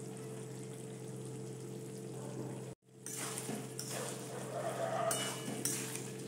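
Wet vegetable curry sizzling in a steel kadai as a spatula stirs it, with scrapes and clinks against the pan in the second half, over a steady low hum. The sound cuts out briefly about three seconds in.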